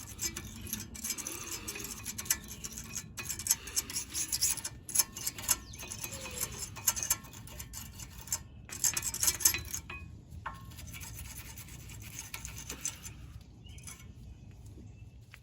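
Front brake caliper bracket and pad hardware of a Honda CR-V being scrubbed clean, as irregular rasping, scraping strokes. The strokes come thick and fast for about ten seconds, then thin out and turn fainter.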